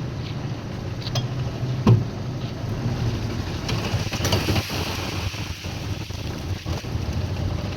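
Concrete mixer machine's engine running steadily, with scattered metal clanks and one sharp knock about two seconds in.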